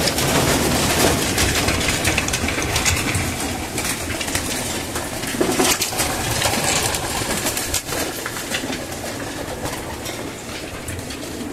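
A flock of hungry racing pigeons crowding onto a seed tray to feed: a busy clatter of flapping wings and pecking at grain.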